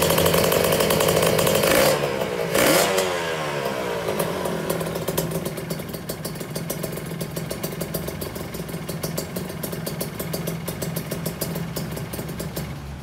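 Kawasaki Ninja 150 RR two-stroke single-cylinder engine running through a CMS expansion-chamber exhaust: held at raised revs, then a quick blip about two and a half seconds in with the revs falling away, settling to idle with a rapid ticking beat.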